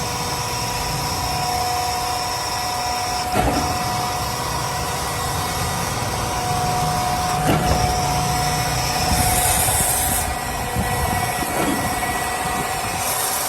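Workshop machinery running steadily with a constant hum, broken by a few sharp knocks about four seconds apart and two short bursts of hiss near the end.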